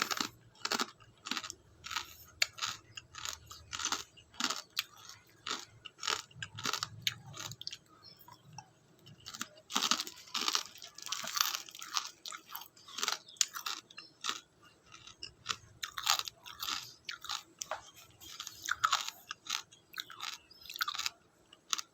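A person chewing crunchy chicharon (fried pork rinds): an irregular run of crisp crackling crunches, several a second, thinning out for a moment twice along the way.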